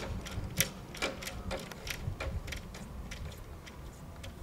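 A run of sharp mechanical clicks and clacks from a railway level-crossing barrier mechanism as the arms come to rest upright. The loudest clicks come first, then about three or four a second, fading out within about three seconds.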